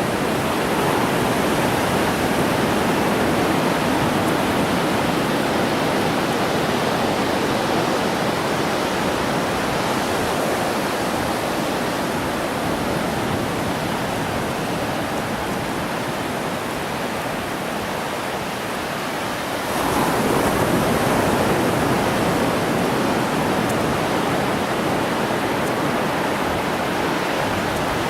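Ocean surf washing on the beach in a steady rush, swelling louder about two-thirds of the way through as a wave breaks.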